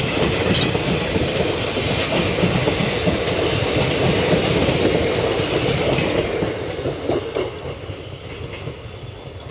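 Passenger coaches of a departing train rolling past on the track, the wheels clicking over rail joints. The sound fades from about six seconds in as the last coach passes and draws away.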